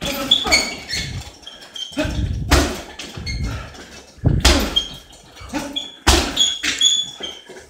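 Punches and kicks landing on a hanging heavy bag: a series of heavy thuds a second or two apart, the last a kick about six seconds in, with short squeaks between the blows.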